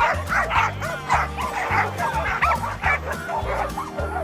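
Dogs barking and yipping rapidly and excitedly, with some whining, over background music with a steady bass line.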